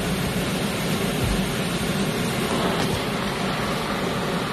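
Thunderstorm downpour: heavy rain and gusting wind making a steady noise, with a brief low rumble or gust about a second in.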